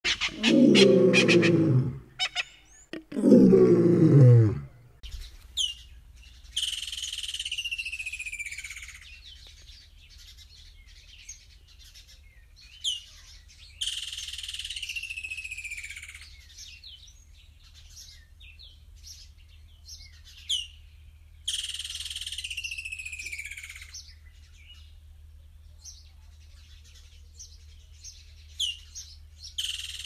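Two loud low-pitched sounds fill the first four seconds or so. Then a woodland kingfisher calls repeatedly: each call is a sharp high note followed by a long descending trill of about two and a half seconds, coming back about every seven to eight seconds.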